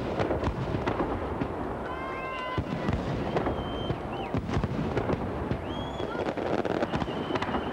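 Fireworks display: aerial shells bursting in a rapid, continuous run of bangs and crackles, with a few short high whistling tones over them.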